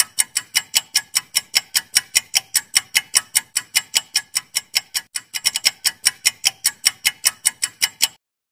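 Clock-ticking sound effect for a quiz countdown timer: fast, even ticks, about five a second, with a brief stumble about five seconds in. It stops shortly before the end.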